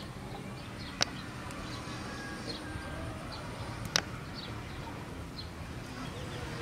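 Two sharp clinks of a metal spoon against a plate, about three seconds apart, over faint bird chirps and a low steady background hum.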